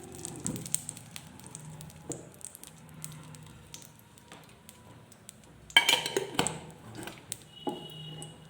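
A spoon and dishes clinking and tapping against a kadhai as ghee is spooned in: scattered light taps, a cluster of sharp clinks about six seconds in, and a brief ringing of a struck bowl near the end.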